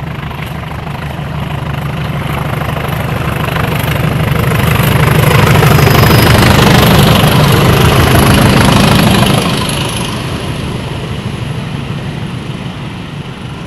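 Diesel locomotive engine working hard as the train passes, growing louder to a peak about halfway through, then fading away.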